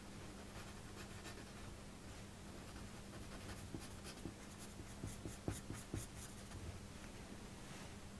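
Coloured pencil scratching on drawing paper in quick shading strokes, loudest and busiest in the middle, over a faint steady hum.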